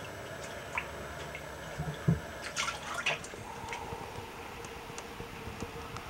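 Water dripping and splashing in a wood-fired iron Goemon bath as the bather moves. There are a few sharp drips, a dull knock about two seconds in and a cluster of splashes a second later. A faint steady hum comes in after the middle.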